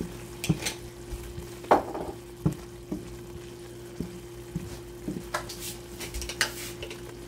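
Wooden spatula stirring a thick, sizzling onion-tomato masala in a frying pan, with irregular scrapes and knocks against the pan about once a second over a soft frying sizzle and a steady low hum.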